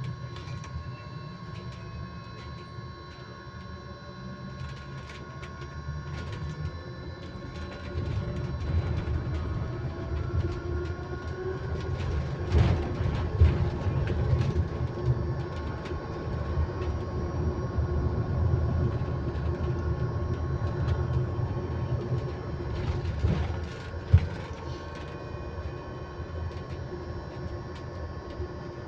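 Electric bus making a steady, constant-pitch whine over low road rumble, with rattles and knocks from the bus. The rumble grows louder about eight seconds in, with a sharp knock about midway and another near the end, then eases off.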